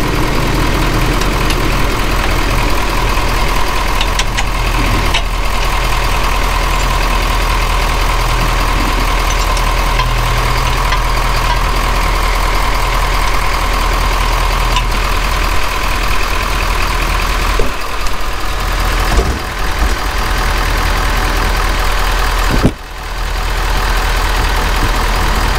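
Ford F550 Super Duty's 6.7-litre Power Stroke V8 turbodiesel idling steadily with a light diesel clatter, heard from under the front wheel well. A few brief knocks come about two-thirds of the way through.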